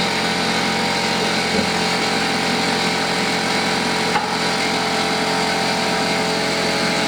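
Shop air compressor running loudly and steadily, a constant motor hum under a hiss, while the chainsaw is blown clean of sawdust.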